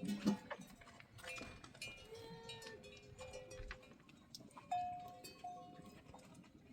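Livestock bells clanking irregularly, short ringing tones among scattered knocks and clicks, with a louder clank nearly five seconds in.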